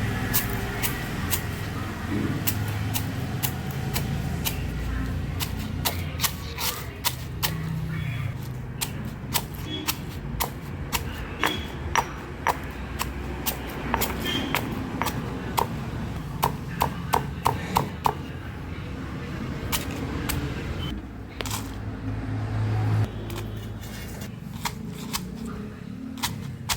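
Kitchen cooking sounds: a long run of irregular sharp pops and clicks, coming in quick runs at times, over a low steady hum.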